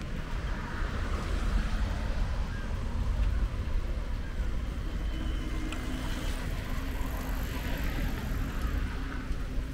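Motor vehicle traffic: a steady low rumble, joined about halfway through by a faint steady engine hum.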